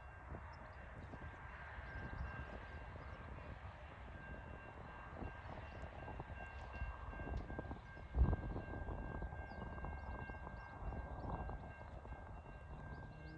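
Distant TasRail diesel locomotives (TR11 leading) approaching with their train: a low, steady rumble with a faint steady whine, mixed with wind on the microphone. A single thump about eight seconds in.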